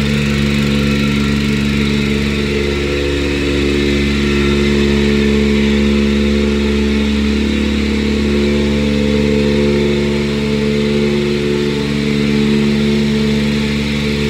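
Excavator's diesel engine running steadily at idle, heard close up from the machine itself: a continuous hum with several held low tones and no revving.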